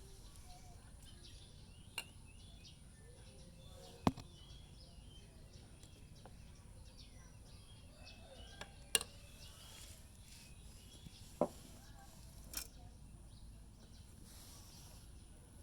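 Hand tools knocking and clicking against motorcycle engine parts during a cylinder-head repair: about five sharp, separate knocks spread over the stretch, the loudest about four seconds in. Faint bird chirps run underneath.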